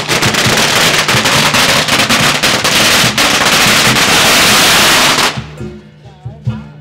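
A long string of Tết firecrackers going off in a dense, rapid crackle that cuts off suddenly about five seconds in, as the string burns out. Music plays underneath and carries on after.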